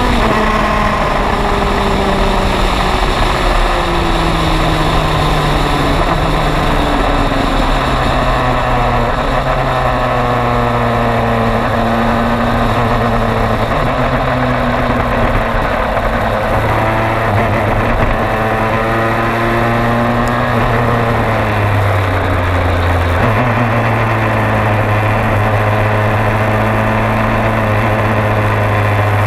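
MG Lola EX257 Le Mans prototype's turbocharged four-cylinder engine heard on board, its note falling over the first several seconds and then running low and steady, with a brief dip a little past twenty seconds. Wind rush over the open cockpit runs underneath.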